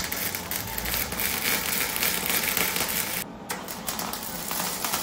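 MIG (wire-feed) welder arc crackling steadily as an O2 sensor bung is welded onto a steel exhaust mid-pipe. The arc breaks off briefly a little past three seconds, then starts again.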